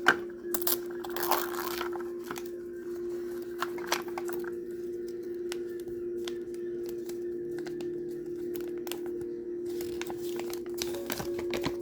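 Plastic toy packaging being torn open and crinkled by hand, with scattered clicks and rustles, over a steady low background tone.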